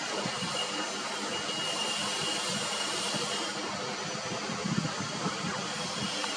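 Steady background hiss with an irregular low rumble underneath and a faint high whine during the first half.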